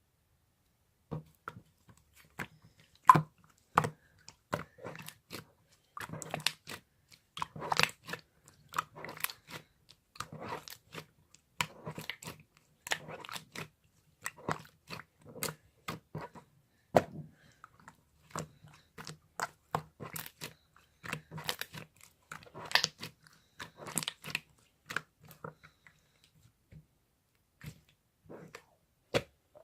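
Slime being squished, pressed and stretched by hand, making irregular sticky clicks, pops and crackles with short pauses between.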